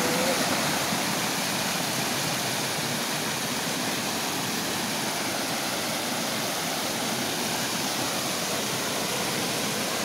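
Small waterfall pouring over rock ledges into the pool below: a steady rush of falling water, so loud it is called noisy.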